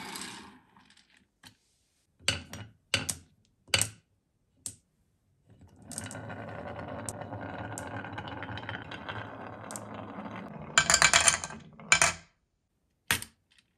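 A few sharp clicks of glass marbles a few seconds in, then several glass marbles rolling down a wavy wooden track in a steady rumble. Near the end they clatter loudly into a small toy truck's plastic tipper bed, with one last click.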